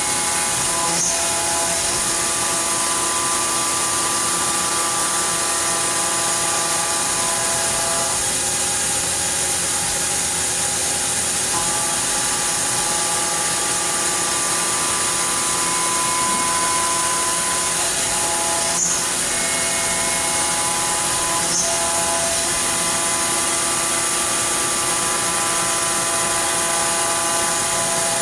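Fadal VMC4020 vertical machining center running under power: a steady, loud hiss with whining tones that shift and switch on and off every few seconds as the machine changes motion, and a few sharp clicks.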